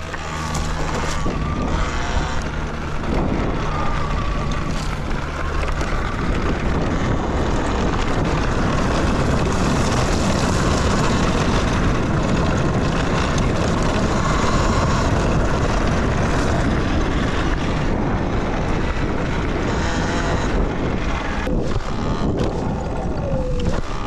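Wind rushing over the microphone as a Talaria Sting electric dirt bike is ridden fast along a trail, with the faint whine of its electric motor under the wind. A few sharp knocks sound near the end as the bike goes over bumps.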